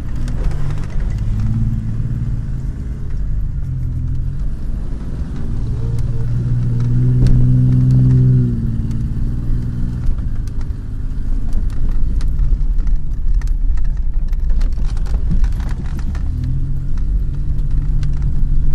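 Ford Explorer engine heard from inside the cab, pulling slowly over a rough, muddy off-road track. The revs rise and fall and are strongest a little after the middle. Short rattles and knocks come through from the body and suspension over the bumps, most of them in the latter half.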